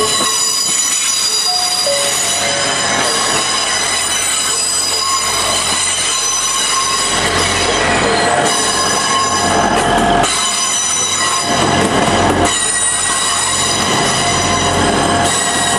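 First Hull Trains Class 180 diesel multiple unit moving slowly along the platform, its diesel engines running under a steady, high-pitched whine. The low engine rumble grows louder about halfway through.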